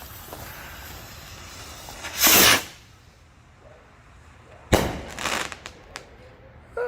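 Small firework rocket launching with a short whoosh about two seconds in, then bursting with a sharp bang a few seconds later, followed by a brief rush of noise and a few small pops.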